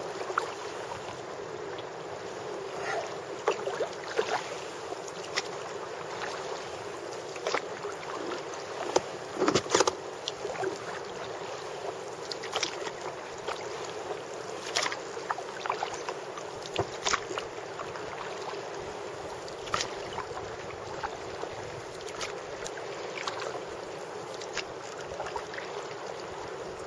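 Sea kayak being paddled through calm water: paddle blades dipping, splashing and dripping irregularly every second or two over a steady hiss. There is a louder cluster of splashes about ten seconds in.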